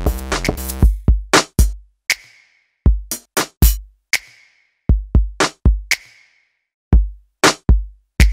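Electronic background music with a drum-machine beat. About a second in, the chords and bass drop out, leaving only kick-drum and sharper drum hits in short groups, with brief silences between them.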